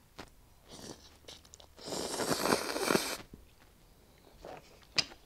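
A person slurping a forkful of soupy instant noodles into the mouth, one loud wet slurp lasting just over a second starting about two seconds in, then quiet chewing. A single sharp click near the end.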